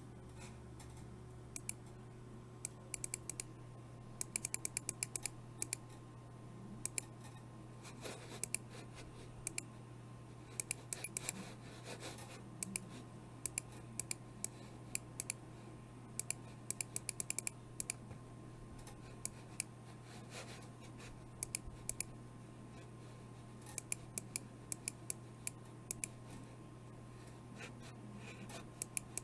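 Computer mouse buttons clicking, sometimes singly and sometimes in quick runs of several clicks, at irregular intervals, over a steady low electrical hum.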